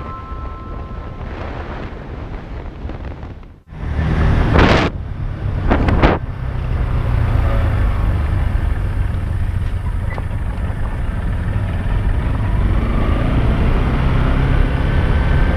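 Motorcycle engine running on the road, with wind noise on the camera microphone; a sudden break about three and a half seconds in, then two loud gusts of noise before the steady ride rumble settles.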